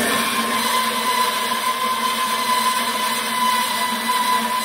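Servo-driven band saw, its 4–6 TPI blade cutting through a solid 3¼-inch 6061 aluminum round bar with the motor at 1,200 RPM: a steady hissing cut with a steady high whine over it.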